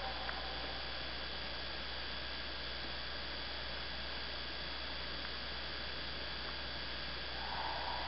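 Steady hiss with a low electrical hum from the camera's microphone; no distinct sound event.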